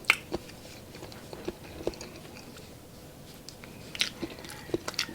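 A person chewing pork adobo close to the microphone, with irregular sharp wet mouth clicks and smacks; the loudest comes just after the start.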